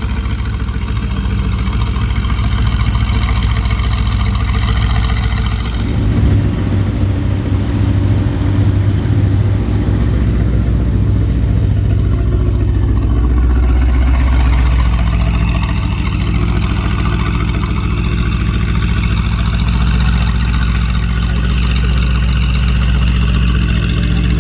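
Mercedes-AMG GT R's twin-turbo V8 running through an aftermarket Fi (Frequency Intelligent) exhaust, held near idle at a steady, loud note. About six seconds in, the sound becomes deeper and stays that way to the end.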